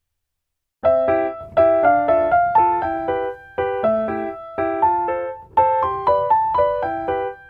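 Background piano music that starts abruptly about a second in after silence: repeated phrases of quick struck notes, each fading away.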